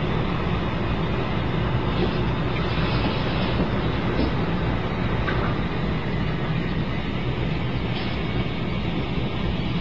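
Toilet refilling after a flush: steady rushing of water into the tank and bowl.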